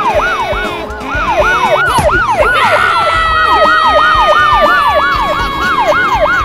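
Police siren in a fast yelp, its pitch swooping up and down about two to three times a second. About three seconds in, a second, long siren tone joins and slides slowly downward.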